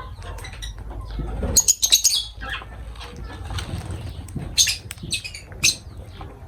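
Lovebirds giving short, sharp, shrill chirps with fluttering wings: one cluster about a second and a half in, and several more between four and a half and six seconds in.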